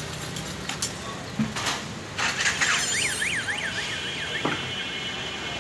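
An electronic warbling tone sweeps rapidly up and down in pitch about four times a second for a second and a half, then holds as a steady high tone, like a vehicle alarm or electronic horn. It sits over steady street noise, with a short clatter just before the warble begins.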